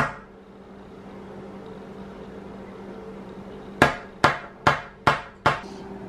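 A sharp knock at the start, then a low steady hum, then five sharp knocks in quick succession, about two a second, on a hard surface.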